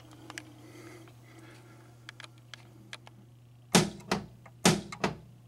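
Bally Medusa pinball coil firing when its driver transistor's tab is grounded with a jumper wire: about five loud clunks in quick succession near the end, after a few light clicks of the wire being put in place, over a steady electrical hum. The coil firing shows that the coil and its wiring are fine.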